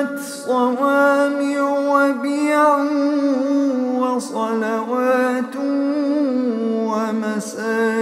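Male reciter chanting the Quran in melodic tajweed style, a single voice drawing out long held notes with ornamented turns in pitch.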